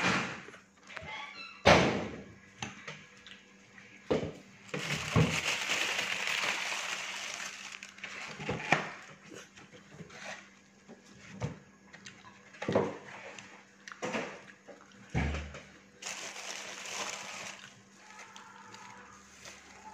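A metal spoon knocking and scraping in a ceramic bowl of stir-fried flat noodles while eating: a few sharp clinks several seconds apart, with stretches of rushing noise between.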